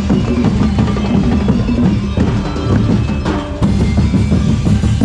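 Street parade drum band playing loud, dense, continuous drumming on rows of drums.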